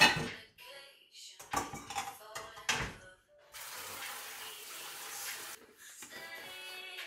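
Dishes clinking and knocking against each other in a kitchen sink, several sharp knocks in the first three seconds, then the tap runs with a steady hiss of water for the rest.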